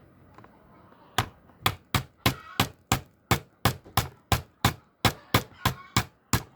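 A steady series of sharp knocks, about three a second, starting about a second in.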